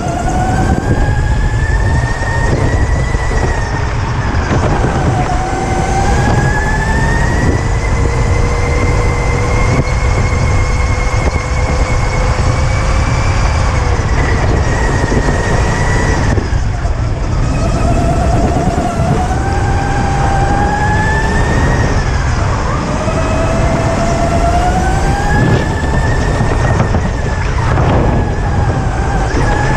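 Electric go-kart's motor whining, its pitch climbing as the kart accelerates and falling away under braking, three times over, over a constant low rumble of wind and chassis vibration on the onboard camera.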